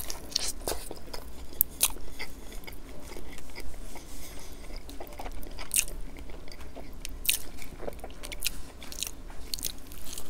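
Biting into and chewing sauce-glazed crispy fried chicken, close up, with irregular sharp crackles of the crunchy breading.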